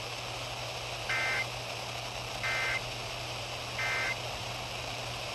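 Three short bursts of EAS end-of-message data tones, each a two-tone digital warble, about a second and a half apart, signalling the end of the alert. They play over steady radio hiss and a low hum.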